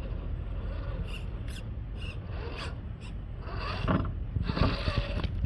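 Redcat Gen 8 Scout II RC crawler working over rough ground: irregular scraping and rubbing of its tires and chassis over rock and dirt, in several bursts, the last two the loudest, over a steady low rumble.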